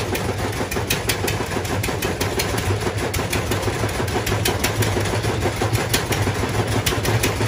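An engine running steadily, with irregular sharp clicks and knocks over its hum.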